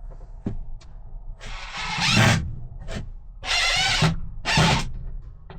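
Power drill driving into wood in several short bursts, each under a second long, after a couple of light clicks.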